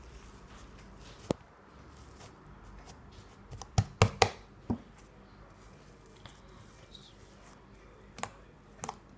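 Cloud slime being handled in the hands: scattered sharp pops and crackles as it is stretched and squished, loudest in a quick cluster around four seconds in.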